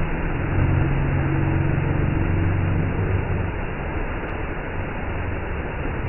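Steady rushing of a waterfall plunging into a pool, with a low held hum under it for a few seconds in the first half.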